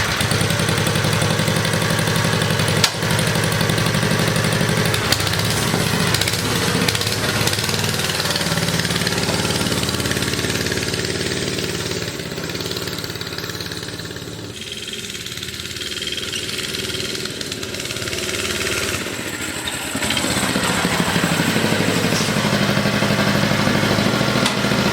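Small Briggs & Stratton single-cylinder engine on a mini bike running under throttle on a ride. It grows quieter about midway and louder again near the end. The rider reports it idles well but sputters and won't pull at the top of the throttle, which he takes to need carburettor tuning.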